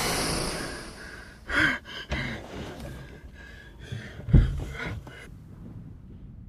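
A man gasping for breath in several short, ragged bursts, with a low thump about four seconds in, the loudest moment.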